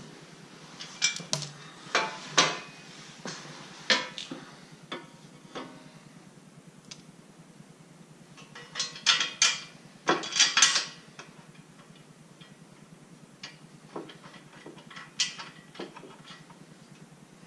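Metal clinks and clatter from a motorcycle skid plate, its bracket and bolts being handled and fitted by hand against the crash bars: irregular knocks, with a busier run of rattling about nine to eleven seconds in.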